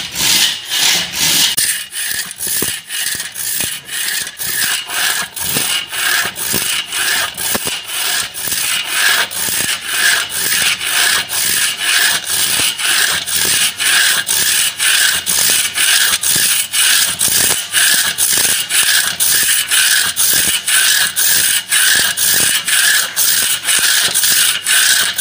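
Hand saw cutting through a sheesham (tahli) log, steady back-and-forth strokes at about two a second.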